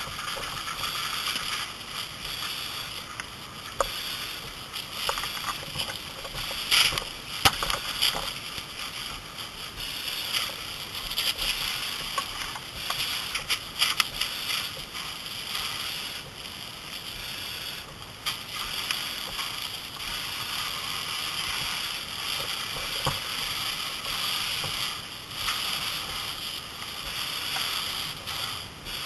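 Fire hose stream spraying water onto a burning car: a steady hiss of water and steam, with a few sharp cracks and pops, loudest about seven seconds in and again near fourteen seconds.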